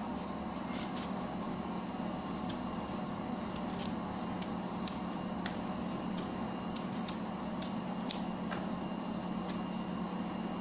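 Brown skin of a cassava root being peeled off by hand, giving irregular small crackles and snaps, over a steady low hum.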